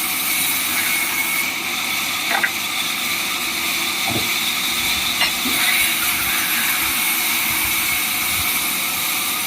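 Sawmill machinery running steadily, with a couple of short knocks.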